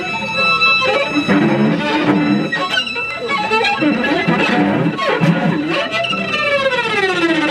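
Free improvisation on shamisen, cello and live electronics: scattered plucked shamisen notes and bowed cello sounds over a few thin high steady tones. About six seconds in, a pitched sound with several overtones glides steadily downward.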